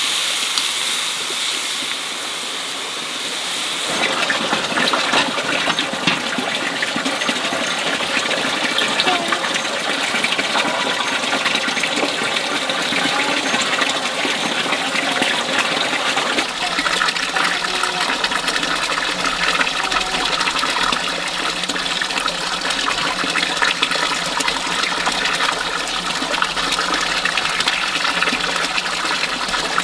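Water running and gushing steadily, with small clicks and splashes of handling; the flow gets stronger a few seconds in, and a low hum joins about halfway through.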